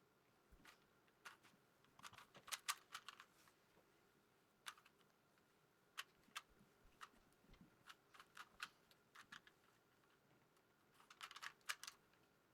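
Faint, irregular clicking of a 3x3 Rubik's cube's layers being twisted, single clicks with quicker runs of several in a row.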